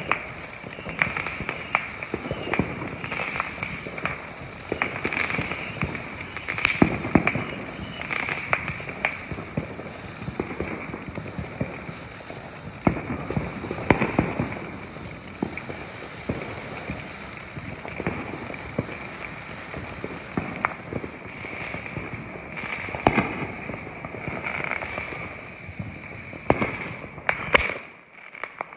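Ground-level firework fountain spraying sparks: a steady hiss with continuous crackling and scattered louder pops, and a couple of sharp cracks near the end.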